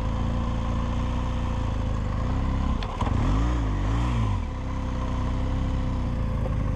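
BMW R1200GS boxer-twin engine running at low revs, with two quick blips of the throttle about halfway through, its pitch rising and falling twice before it settles back.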